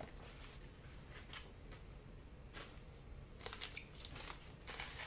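Faint rustling and light taps of glossy trading cards being handled and set down on a tabletop, a little busier about three and a half seconds in.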